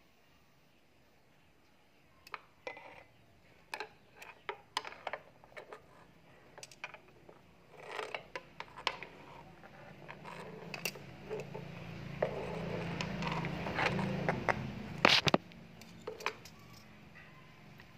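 Scattered sharp taps, clicks and scrapes on a hard tiled floor, irregular, with a low rumble building in the second half and two loud knocks about 15 seconds in.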